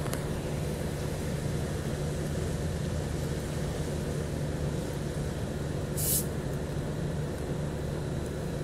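Steady low hum and rumble of background noise, with one short hiss about six seconds in.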